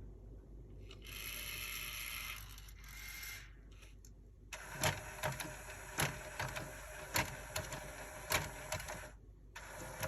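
Small loading motor and gear mechanism of a Sony MXD-D5C CD/MD deck: it whirs briefly twice, then runs for about four and a half seconds with sharp clicks about two a second. This is the deck trying to work its CD tray after a belt replacement, with the tray failing to open.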